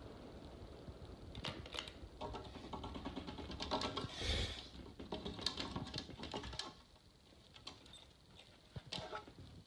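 A woman's voice talking, muffled and in the background, for the first several seconds, with scattered light clicks; it drops off about two-thirds of the way through, leaving a few clicks.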